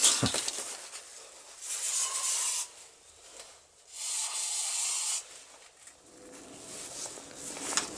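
Aerosol spray can hissing in two bursts of about a second each, blasting the bore of a motorcycle brake master cylinder clean. A low drone from an aircraft passing overhead builds near the end.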